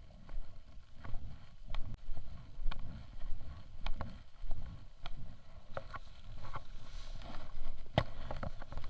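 Wind buffeting the microphone in uneven low gusts, with scattered clicks and knocks; the sharpest knock comes about eight seconds in.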